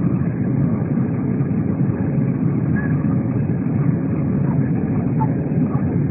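Airbus A320 jet engines and airflow, a steady low rumble that does not change.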